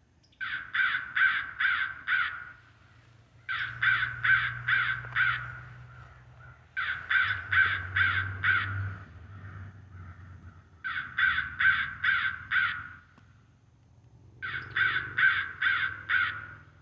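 Electronic crow caller playing recorded crow caws at full volume: five bouts of about five quick caws each, repeating at an even pace.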